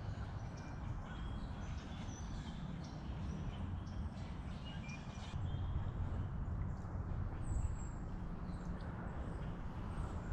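Scattered short, high bird chirps and a few thin whistles over a steady low rumble.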